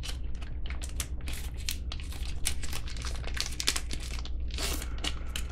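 Packaging being handled and unwrapped from around a folding knife, crinkling and rustling in a quick, irregular series of crackles.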